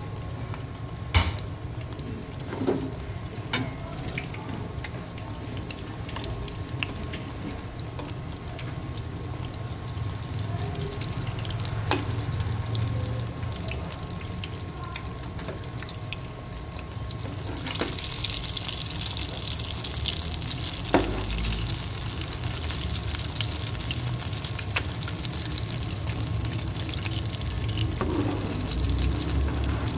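Batter-coated chicken drumsticks deep-frying in hot oil: a steady crackling sizzle with a few sharp clicks. The sizzle grows brighter about two-thirds of the way through.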